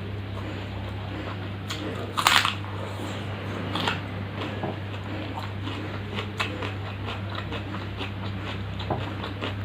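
Close-miked eating: a person chewing and biting food, with short crunches and wet mouth clicks, the loudest crunch about two seconds in. A steady low hum runs underneath.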